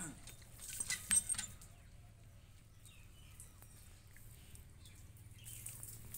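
Crackling rustle of dry leaves and straw as a goat kid pulls at fodder, for about the first second and a half, then only a faint low hum with a few small ticks.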